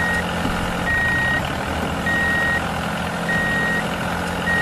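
Vehicle reversing alarm beeping at a steady pace, one half-second beep about every second and a quarter, over a heavy vehicle's engine running steadily.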